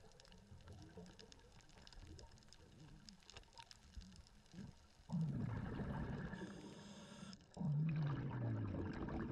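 Scuba regulator breathing underwater: faint crackling clicks at first, then about five seconds in a gurgling rush of exhaled bubbles, a hiss of inhaling through the regulator for about a second, and a second exhale of bubbles.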